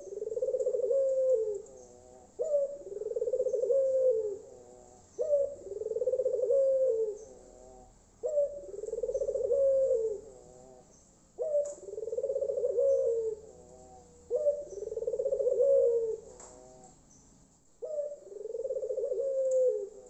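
A caged ringneck dove (Indonesian 'puter') cooing over and over: seven long rolling coos, each about two seconds, repeated about every three seconds. Each coo opens with a short sharp note.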